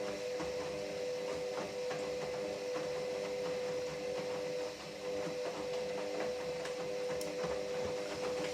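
Hoover 8 kg washing machine in the main wash of its Daily 59 programme at 30°C: the drum motor runs with a steady whine and faint clicks from the tumbling drum, dipping briefly about five seconds in.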